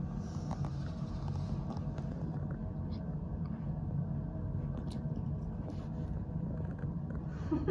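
Quiet room tone: a steady low hum with a few faint short clicks about three and five seconds in.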